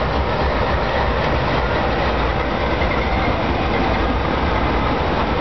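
A consist of Norfolk Southern GE Dash 9-40CW diesel locomotives passing at a steady pace, their diesel engines running with a continuous low throb and wheel noise on the rails.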